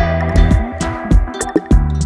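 Background music: a funk-style track with guitar, bass and a steady drum beat.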